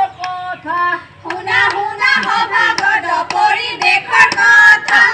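Performers' voices singing: one voice holds notes at first, then from about a second in several voices sing together, with sharp hand claps over them.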